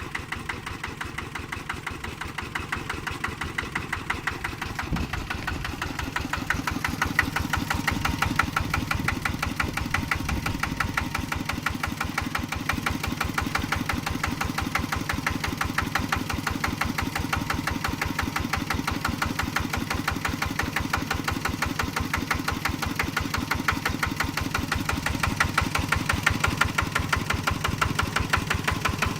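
A small engine running steadily at an even idle-like speed with a rapid regular pulsing, getting slightly louder about six seconds in.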